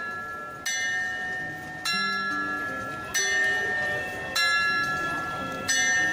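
The Zytglogge tower clock's bell striking the hour, five measured strikes about a second and a quarter apart. Each strike rings on and fades before the next.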